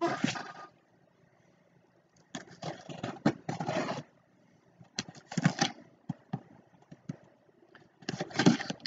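Cardboard ammunition box being handled and opened: several bursts of cardboard scraping and rustling, with a few short light taps in between.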